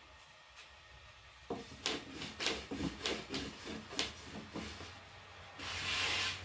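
Thin wooden rolling pin rolling out flatbread dough on a floured wooden board: rubbing strokes with light knocks, about two to three a second, starting about a second and a half in. Near the end a louder brushing hiss as the dough is swept across the floured board.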